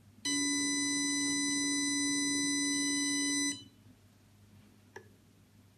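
DJI Osmo Mobile smartphone gimbal's failing motors giving a loud, steady buzzing tone for about three seconds, which cuts off sharply. A single click follows about five seconds in.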